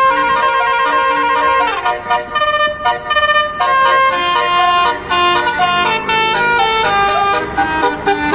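Bus telolet horn of the Basuri type playing a melody: a run of loud horn notes stepping from pitch to pitch every fraction of a second, with brief breaks around two and three seconds in.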